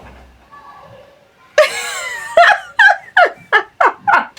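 A woman laughing. After a short quiet spell, a breathy burst comes about one and a half seconds in, followed by a run of short, falling "ha" pulses, about four a second.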